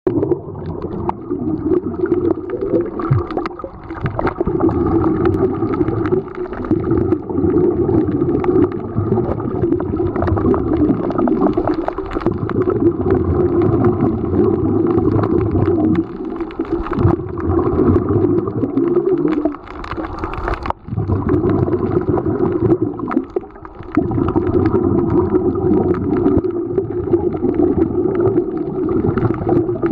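Scuba divers' exhaled bubbles gurgling and rushing past an underwater camera, a steady watery rumble with a few short lulls.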